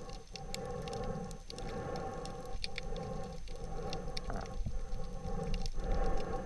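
Underwater sound picked up by a camera in a waterproof housing during a dive: a steady muffled hum that dips about once a second, with scattered small clicks and crackles.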